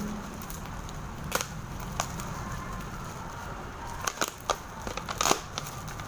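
Toy packaging being handled and opened: scattered crackles and sharp clicks, a few at first and a busier cluster in the second half.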